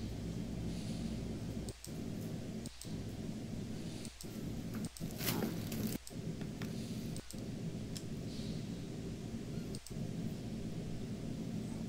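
Steady low background hum with a few faint clicks, and a short rustle about five seconds in.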